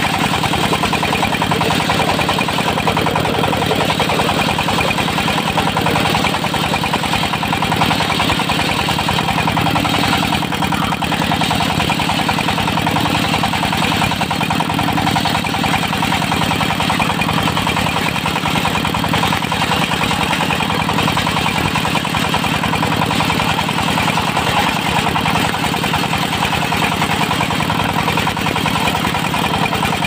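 Diesel-driven circular sawmill running steadily while its blade rips lengthwise through a teak log, sawing it into boards.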